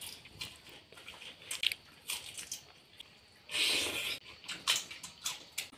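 A person eating: close chewing and biting, with small crunches and clicks. About three and a half seconds in, a louder hissing, rushing sound lasts under a second.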